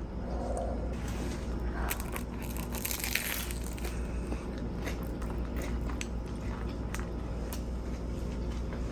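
A person biting into and chewing a grinder sandwich, a sub roll packed with chopped lettuce salad, with small crunches and clicks of crisp lettuce and bread. A steady low hum runs underneath.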